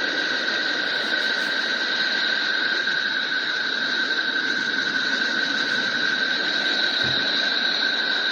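Planetary 'space sound' from a solar-system sonification: a steady hiss with two held high whistling tones, unchanging throughout.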